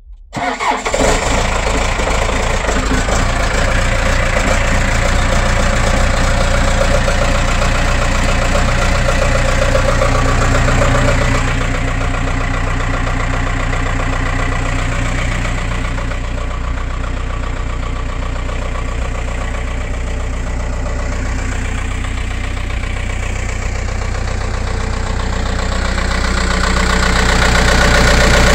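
Skid steer's Cummins diesel engine catching on a cold start about half a second in, then idling steadily as it warms up. It gets a little louder near the end.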